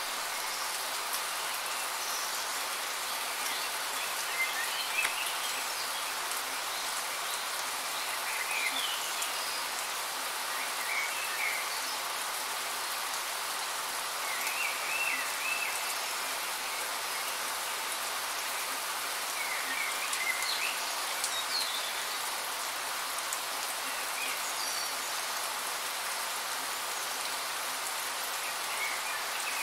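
Steady rain falling, an even hiss of many drops, with occasional short high chirps from small animals every few seconds.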